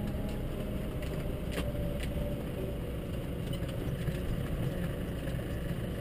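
Case tractor's diesel engine running steadily, heard from inside the cab while pushing a front snow plough along a snowy road, with a few faint clicks.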